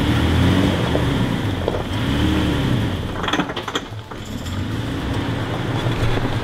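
Off-road truck engine revving up and down in rises and falls of pitch, with a quick run of knocks about three and a half seconds in.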